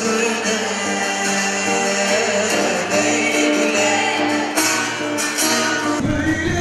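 Live acoustic band playing with singing: nylon-string classical guitar strummed alongside a kanun and other plucked strings. About six seconds in the sound cuts to a louder band with a heavy bass.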